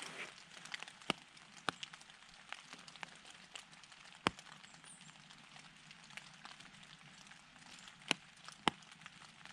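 Light rain mixed with snow falling on dry fallen leaves: irregular sharp ticks, a few louder ones, over a faint hiss.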